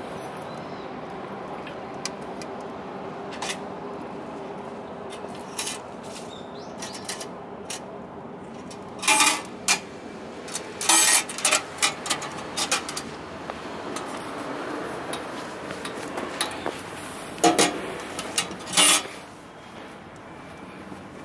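Wood fire crackling with scattered small pops in a stainless steel Winnerwell Nomad View tent stove. Loud metallic clanks of stainless steel gear being handled and set down come in two bursts, a few seconds apart in the middle and again near the end.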